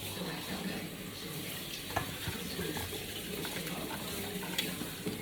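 Kitchen tap running in a steady stream while strawberries are rinsed under it, with a few light knocks of handling in the sink. The water shuts off abruptly at the end.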